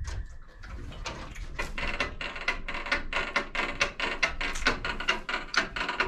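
A young dairy calf sucking milk from the rubber teat of a wall-hung nipple bucket: fast, rhythmic sucking and smacking, about five pulls a second. It starts about a second in and gets louder.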